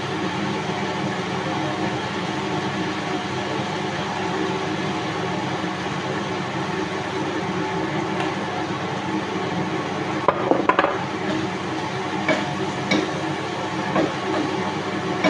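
Steady hum of a kitchen range hood fan, with a few sharp clinks and scrapes of a utensil against the frying pan as it is stirred, a quick cluster about ten seconds in and single ones after.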